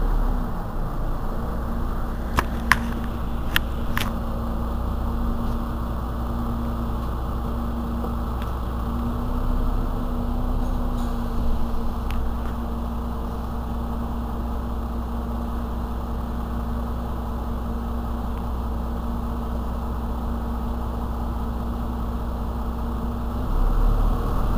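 Mercedes-Benz Citaro C2 city bus engine idling steadily while the bus stands still, with a few sharp clicks about two to four seconds in. The engine sound grows louder near the end.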